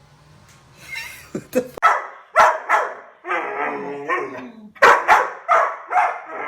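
Dog barking and yipping in a quick, loud series that starts about a second in.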